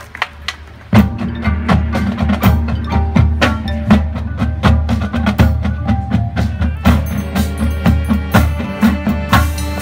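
A marching band's music starts abruptly about a second in: pitched mallet-percussion notes and sharp percussion hits over a sustained low bass. The band plays on loudly from there.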